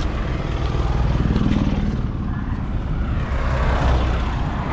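Road traffic passing close by: a steady low rumble of vehicles that swells about a second in and again near the end.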